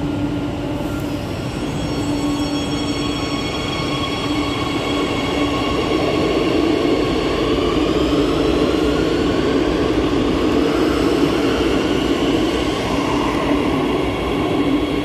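Madrid Metro Line 8 train pulling out of an underground station, accelerating. Its motor whine, in several tones, rises steadily in pitch over the rumble of the train on the rails.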